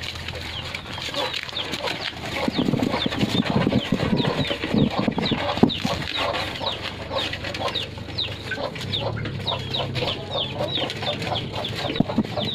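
Puppies feeding together at one dish, eating noisily, with a constant run of short, high, falling peeps over the top; a louder, lower, rougher stretch comes about two and a half to six seconds in.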